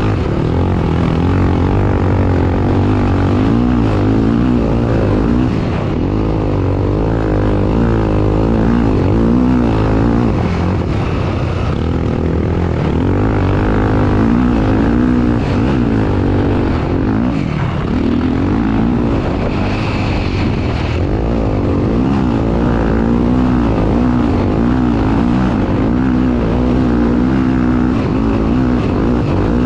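Racing vehicle's engine running hard, its pitch rising and falling constantly as it revs up and down.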